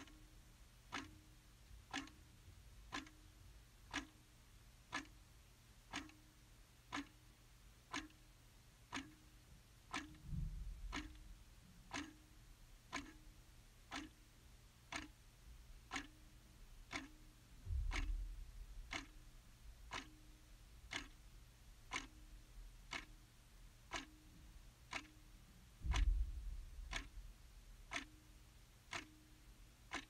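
Clock ticking steadily, one sharp tick a second, as the second hand steps. Three low rumbles, each a second or two long, come through underneath: about ten seconds in, about eighteen seconds in, and a louder one about twenty-six seconds in.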